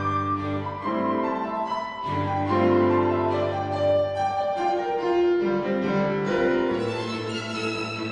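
Piano quintet (piano, two violins, viola and cello) playing classical chamber music, with long held low notes beneath the piano and violin lines.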